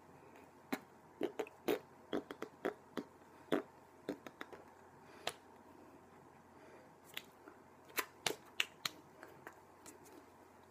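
Irregular short clicks and smacks made by a person signing in American Sign Language, in two bursts of activity with a pause in the middle, over a faint steady room hum.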